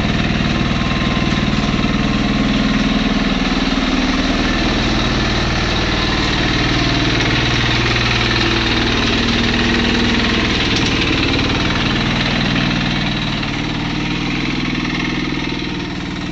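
Yanmar C10R tracked dumper's engine running steadily as the machine is driven, a little quieter near the end.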